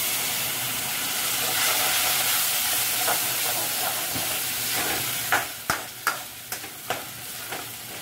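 Water poured into a hot metal kadhai of browned onions and ginger-garlic paste, hissing into a sizzle that starts sharply and dies down over about five seconds. The water is added so the over-browned onions don't burn. A metal ladle then stirs and scrapes the pan with a string of clinks.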